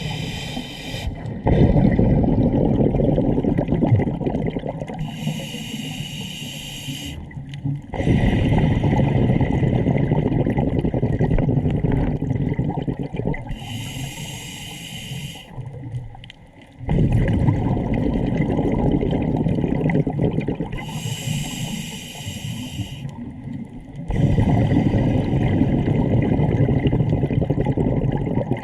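A scuba diver breathing through a regulator underwater: a hissing inhale of about two seconds, then several seconds of bubbling exhaled air, repeating about every seven to eight seconds, four breaths in all.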